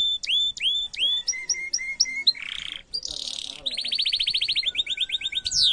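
Domestic canary singing a fast, varied song: a string of repeated upswept whistled notes, a rapid rolled trill a little past the middle, and a steep downward-sliding note near the end.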